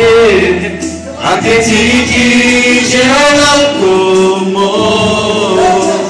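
A man singing a slow worship song into a microphone over the hall's loudspeakers, in long held notes that glide between pitches.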